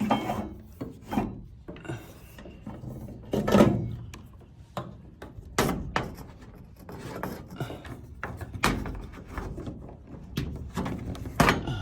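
Electrical wire being pulled and wound around a wooden post, scraping and rubbing against the wood, with irregular knocks from the wire and hands hitting the post.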